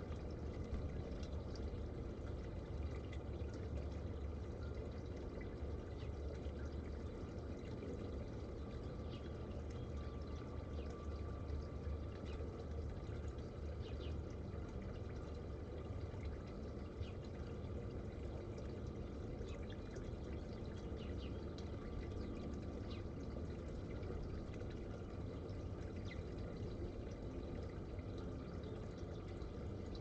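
Small tiered garden fountain trickling steadily.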